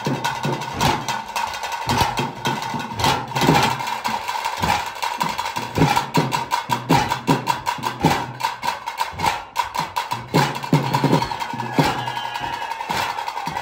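Tase drums beaten with sticks in a fast, dense tiger-dance (pili nalike) rhythm, with a steady droning tone underneath.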